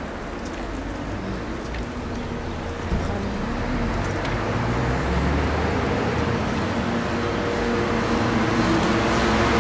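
Road traffic on a city street: the rush of engines and tyres growing steadily louder, with a vehicle's engine hum coming up near the end as it approaches.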